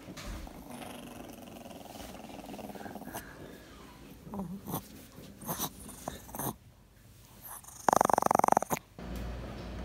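Small white fluffy dog lying on its back having its belly rubbed, making a few short grumbles and then one loud, pulsing growl of about a second near the end.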